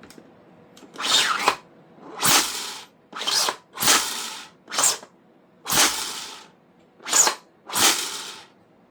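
Gas-blowback airsoft Barrett M82A1 rifle, 3D printed in PLA, firing eight single shots about a second apart, each a sharp crack followed by a short hiss of gas.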